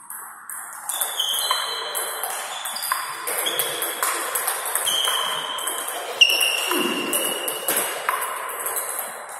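Table tennis ball struck back and forth in a long rally: a steady run of sharp ringing pings from bat hits and table bounces, about two a second, with one louder hit a little past the middle.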